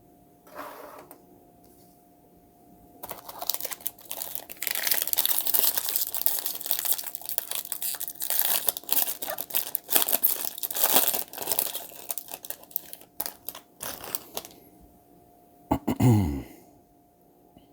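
A trading-card pack wrapper being crinkled and torn open, with dense irregular crackling for about eleven seconds. Near the end there is a brief low sound that drops in pitch.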